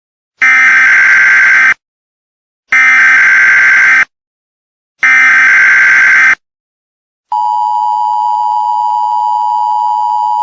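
Emergency Alert System tones: three SAME data-header bursts, each about a second and a half long with a second's pause between, then the steady two-tone attention signal starting about seven seconds in. Together they open an emergency alert broadcast.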